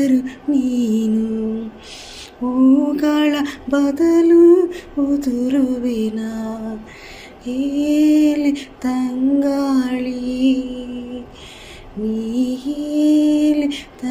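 A woman singing solo and unaccompanied, holding long notes in phrases with short pauses for breath between them.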